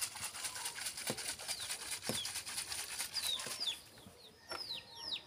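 A bird calling a series of short, quickly falling chirps, repeated about every half second from about three seconds in, over a fast high ticking that fades out shortly before the calls take over.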